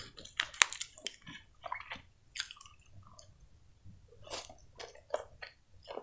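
Close-miked mouth sounds of eating a soft sponge cupcake topped with whipped cream: wet chewing and lip smacks, with irregular small clicks.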